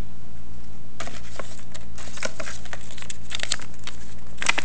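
Plastic and paper being handled in a plastic food container: crinkling and rustling with irregular light clicks, thickest near the end, over a steady low hum.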